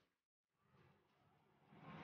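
Near silence: a dead gap in the soundtrack with only faint hiss.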